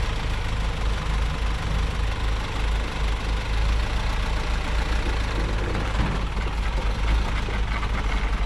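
Heavy truck diesel engine running steadily at low revs, a dense low rumble, as the truck is pulled along on a tow chain.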